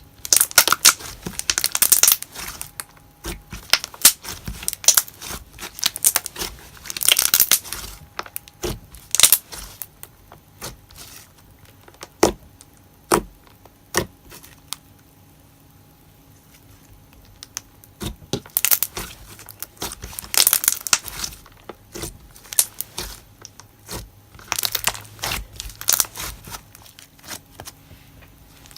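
slime.og's glossy "Roasted Marshmallow" slime being squished and pressed by hand, giving bursts of crackling, popping bubble sounds. Midway there is a quieter spell with only a few single pops before the crackling picks up again.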